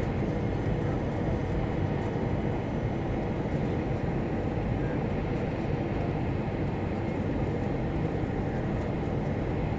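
Steady engine and airflow noise inside an Airbus A320 cabin: an even rumble that holds the same level throughout.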